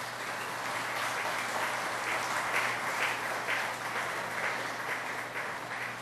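Audience of a few dozen people applauding, a dense patter of hand claps that eases off near the end.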